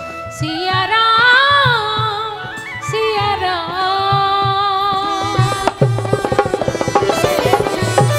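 A woman singing a Hindi devotional song (bhajan) in long, held, ornamented phrases over a steady hand-drum beat. About five and a half seconds in, the drumming breaks into a fast, dense rhythm.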